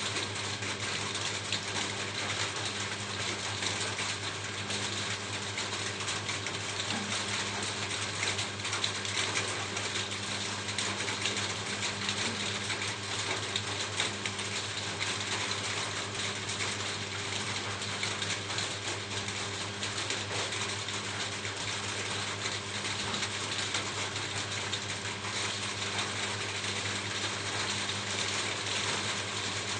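Steady rain drumming on a roof: a dense, even hiss made of countless fine drop ticks, with a steady low hum underneath.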